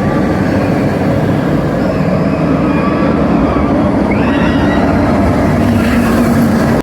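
Amusement-park ride train rumbling loudly and steadily along its track, with high wavering tones over the rumble. It cuts off suddenly at the end.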